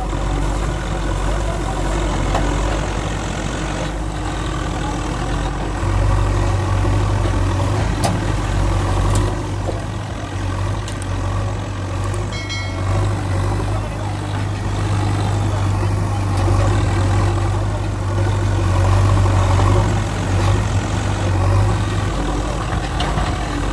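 A heavy engine idling steadily, a low hum that grows stronger from about six seconds in and eases again a little before the end.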